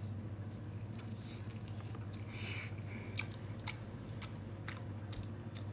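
A person chewing and biting food, with scattered wet mouth clicks at irregular intervals, over a steady low hum.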